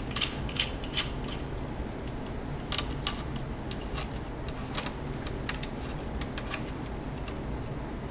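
Small Phillips screwdriver turning out the heatsink mounting screws on a laptop motherboard: irregular light clicks and ticks from the screwdriver and screws, coming in small clusters.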